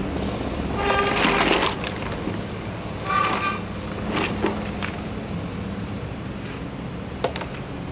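Plastic handling: a clear plastic tray squeaks and scrapes twice as it is worked out of a plastic storage box, then hard plastic toy food pieces clatter out with a few light clicks. A steady low rumble runs underneath.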